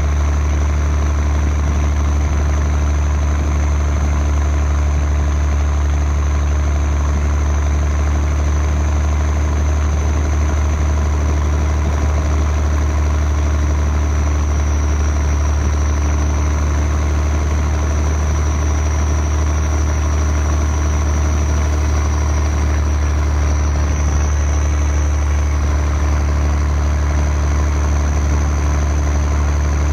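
M35A2 deuce-and-a-half's multifuel turbocharged inline-six diesel running steadily as the truck pushes through deep floodwater, heard from the cab as a constant deep drone with a thin high whine over it.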